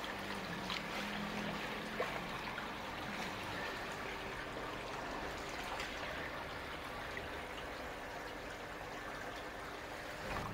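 Koi pond water running steadily, a continuous trickle with a few faint knocks.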